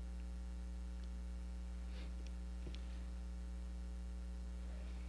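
Steady electrical mains hum on the microphone and sound-system line, with a few faint light ticks about two to three seconds in.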